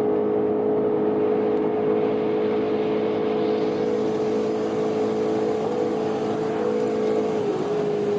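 Chevrolet Corvette Z06's V8 engine running hard at high revs in top gear at very high Autobahn speed, its pitch holding almost level with heavy wind and road noise. The pitch sags slightly near the end.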